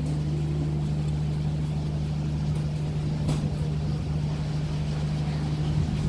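Steady low hum of a ship's machinery, several fixed low tones held throughout, with a faint click about three seconds in.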